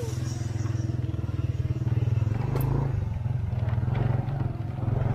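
Motorcycle engine running at a steady speed, a low even drone.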